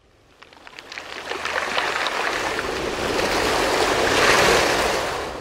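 Sea surf: a swell of water noise that builds for about four seconds with a crackle of small clicks through it, peaks, then draws back and fades.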